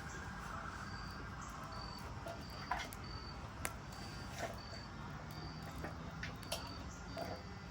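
A cricket chirping steadily, one short high chirp about every 0.7 s, over a low steady background. A few sharp clicks or pops come through at scattered moments.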